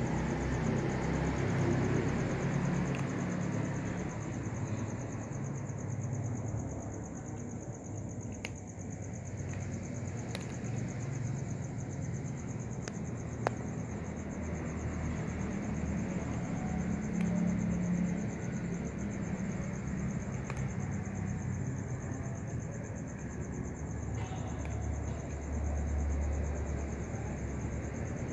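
A cat eating dry kibble from a plastic tub, with scattered sharp clicks of chewing and kibble moving, over a low rumble and a steady high chirring of crickets.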